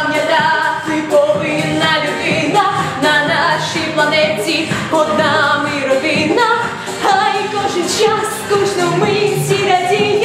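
A girl singing a pop song with live vocals over backing music with a steady beat.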